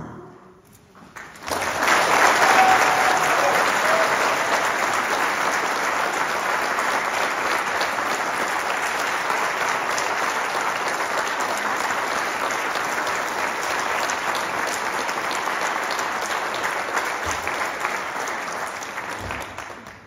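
The brass band's last chord dies away, and about a second and a half later an audience breaks into applause. The clapping is loudest just after it begins and then carries on steadily.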